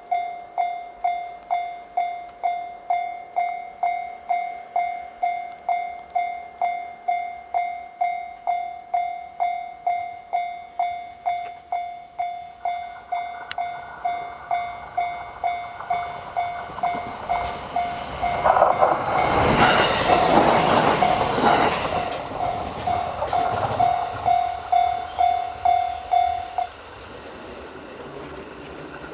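Japanese level-crossing alarm ringing steadily at about two strikes a second while a train runs through the crossing. The train's wheel and running noise swells loud about two-thirds of the way in, then fades. The alarm cuts off suddenly a few seconds after that.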